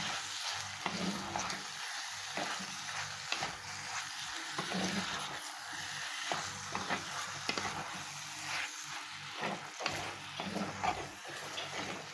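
Raw prawns and drumstick pieces sizzling in hot oil in a pot, stirred with a wooden spatula that gives many short scraping clicks against the pot.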